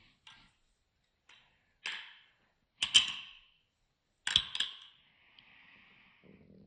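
Balisong trainer's metal handles clicking and clacking as it is flipped: a string of separate sharp clacks, loudest about three seconds in and again in a quick double clack about four and a half seconds in.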